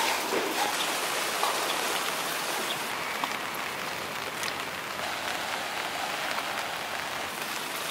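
Heavy rain falling steadily: a dense, even hiss of drops on wet ground and water, with faint scattered drip ticks.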